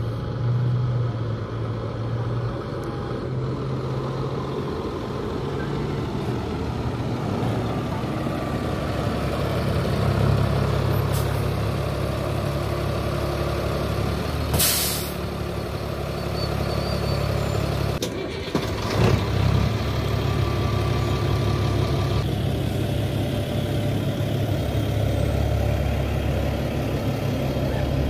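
Caterpillar 3126 diesel engine of a 2002 Freightliner Thomas FS-65 school bus running steadily as the bus pulls in. About halfway through there is a short, sharp air-brake hiss, followed a few seconds later by a few knocks. Near the end the engine sound grows heavier as the bus pulls away.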